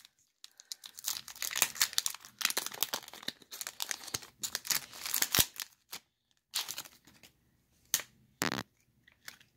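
Foil wrapper of a Pokémon card booster pack crinkling and tearing as it is torn open by hand. After about six seconds it gives way to a few short, sharp rustles as the cards are pulled out and handled.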